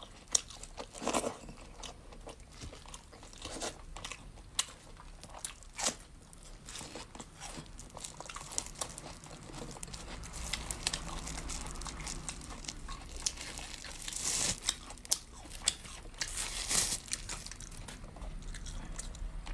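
Close-miked eating: crunchy bites and chewing, with many sharp mouth clicks and a few longer, hissier stretches.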